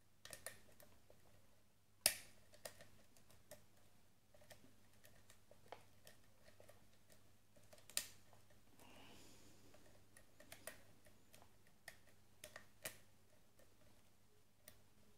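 Faint, irregular clicks and ticks of a lock pick and tension wrench working the pins of a Wilka euro cylinder whose core is held in a slight false set, with two sharper clicks about two seconds and eight seconds in.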